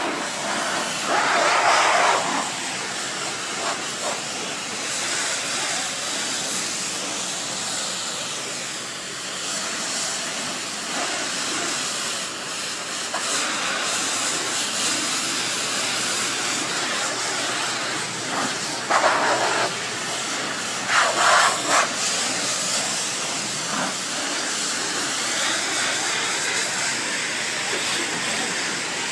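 Pressure washer spraying a jet of water against glass and wall panels to blast off paint: a steady, loud hiss, with a few short louder bursts about two seconds in and again around twenty seconds.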